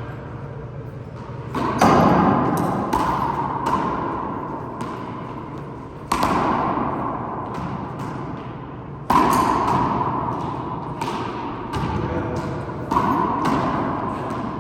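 Handball rally in an enclosed four-wall court: the rubber ball is smacked by hand and slaps off the walls and floor, four loud hits about three to four seconds apart with lighter taps between. Each smack rings on with a long echo from the court.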